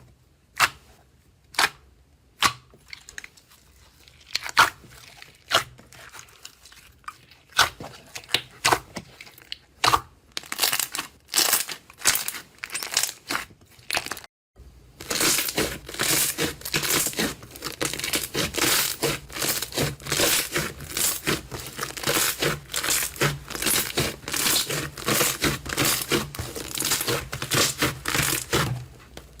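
Slime being squeezed and worked by hand, making sharp crackling pops. At first they come singly, about one a second; after a short break partway through, the crackling turns dense and fast.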